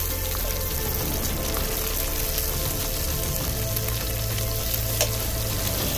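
Fish pieces frying in oil in a pan, a steady sizzle, with one sharp tap about five seconds in. Background music plays underneath.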